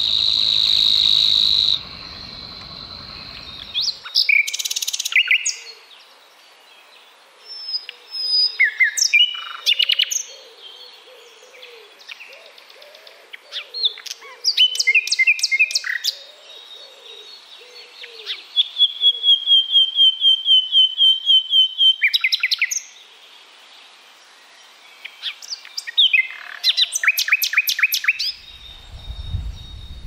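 Common nightingale singing: short varied phrases with brief pauses between them, mixing sharp rapid notes and clear whistles. About two-thirds of the way through comes a long run of quick repeated notes, about five a second.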